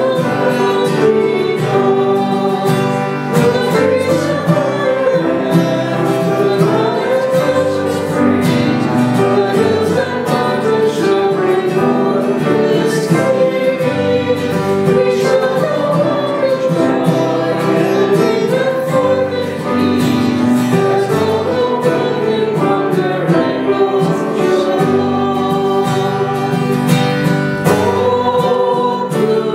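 A hymn sung to strummed acoustic guitar accompaniment, with the sung melody and the steady strumming running on without a break.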